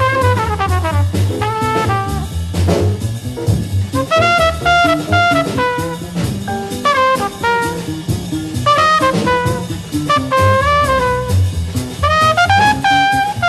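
Small-group bebop jazz recording: one horn plays a fast, twisting solo line over bass and drum kit with cymbals.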